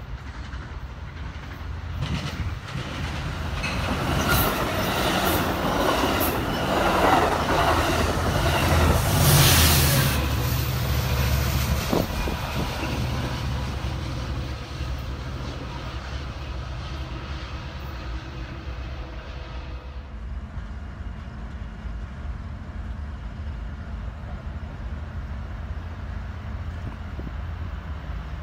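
Amtrak Pacific Surfliner passenger train passing at speed: rumble and clickety-clack of the wheels build to a loud peak about ten seconds in. After that comes a steadier, quieter train rumble.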